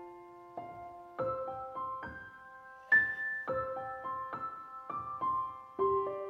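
Background music: a slow, gentle piano melody of single notes that ring and fade.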